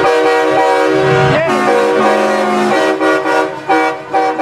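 A truck's musical horn playing a tune: a run of held multi-note chords that change pitch every half second to a second, breaking into short blasts near the end.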